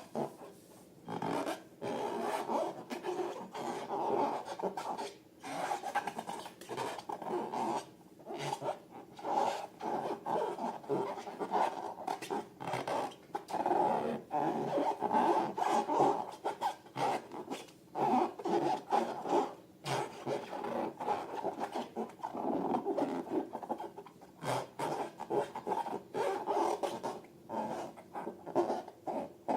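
Hands working slime and rubber balloons, making irregular rubbing and squishing sounds in bursts a second or two long, with short pauses between them.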